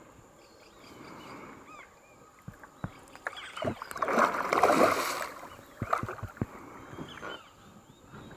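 Hooked redtail catfish thrashing and splashing at the water's surface, loudest about four to five seconds in, with a smaller splash near six seconds.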